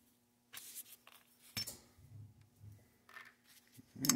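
Small steel parts of an AR-15 bolt carrier group being handled by hand: a short scrape, a few faint clicks and soft knocks, and a sharper metallic click near the end.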